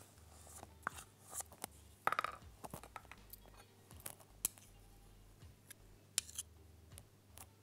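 Metal spoon scraping and clinking as thick chocolate sauce is scooped into a ceramic ramekin: a scatter of small clicks and scrapes, with one longer scrape about two seconds in.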